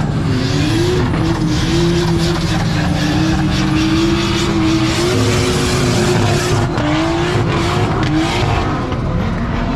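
Drift car's engine held at high revs while sliding, its pitch wavering up and down as the throttle is worked, with dips near the end. A steady hiss from the tyres spinning on the wet skid pan runs underneath.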